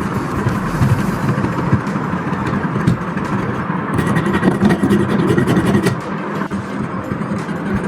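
Vintage electric table fan running steadily: a constant motor hum under a rush of moving air.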